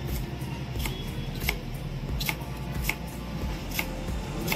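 A chef's knife chopping tomato on a cutting board: sharp knocks as the blade strikes the board, about three every two seconds.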